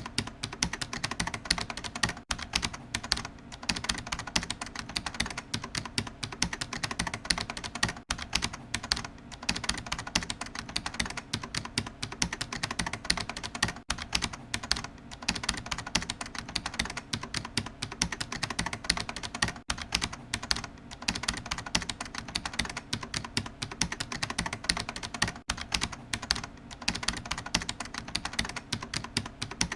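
Computer keyboard typing: a fast, continuous run of key clicks, many strokes a second, with no pauses of note.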